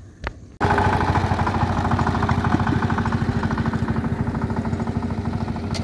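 A small engine running close by with a steady, rapid pulsing chug. It starts suddenly about half a second in.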